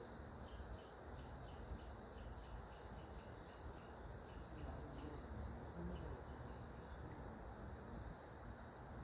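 Faint insect chirping: a run of short chirps, about five a second, over the first few seconds, then a few scattered ones, over a steady high hiss and a low rumble.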